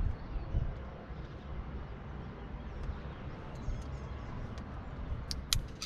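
Low, uneven rumbling and rustling on the microphone while climbing. Near the end come two or three sharp metallic clicks of climbing gear knocking together.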